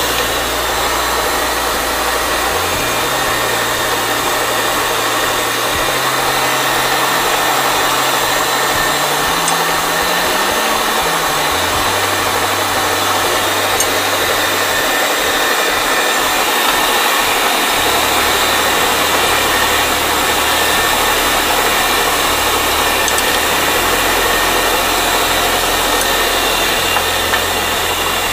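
Used bench grinder running at speed, a steady motor and wheel whir with a low hum underneath that shifts up and down in pitch. Its grinding wheel and wire wheel are both out of balance and make the grinder and its table shake; the bare shaft runs true.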